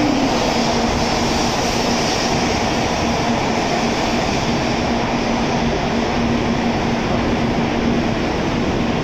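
N700A Shinkansen train rolling slowly into a station platform as it pulls in to stop: a steady rush of running and wheel noise with a steady low hum underneath.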